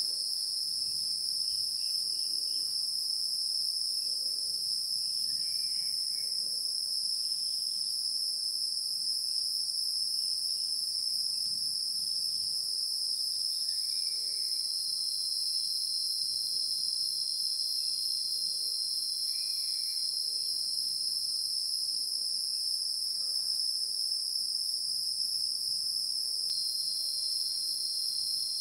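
Steady insect chorus: a continuous high-pitched trill that never lets up, with faint short calls in the background now and then.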